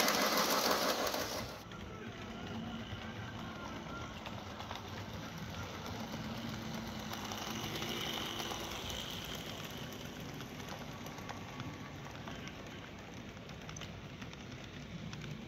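Model electric train running on its track: a Lionel O-gauge steam locomotive clicking over the rails for the first second and a half, then a quieter, steady hum of a smaller model steam locomotive and boxcars rolling past.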